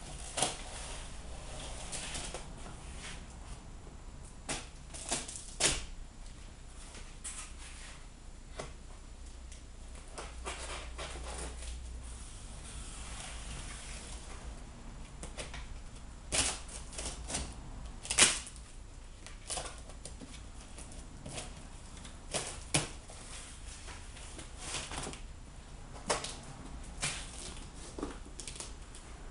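Long cardboard shipping box being opened by hand: a knife slitting its packing tape and the flaps being pulled back, giving scattered sharp clicks and knocks among stretches of cardboard rustling and scraping, over a low steady hum.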